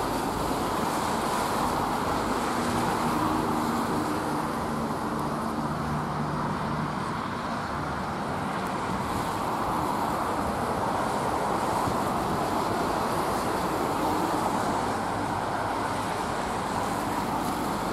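Steady noise of road traffic on wet roads, with a low engine hum for a few seconds near the start.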